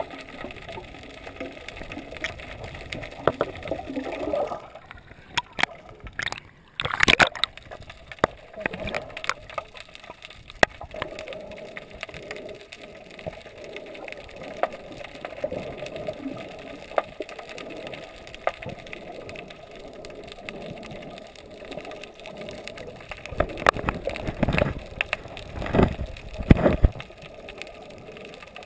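Water sloshing and gurgling picked up by an underwater camera, with scattered clicks, a short louder burst about seven seconds in and a few more bursts near the end.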